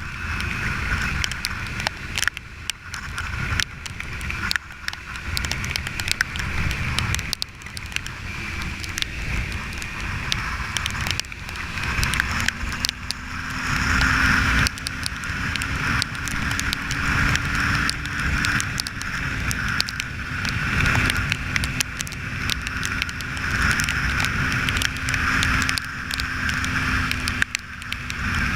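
Wind buffeting the microphone on a moving Kawasaki Ninja 300, with the parallel-twin engine running underneath at a steady note that rises slightly about twelve seconds in.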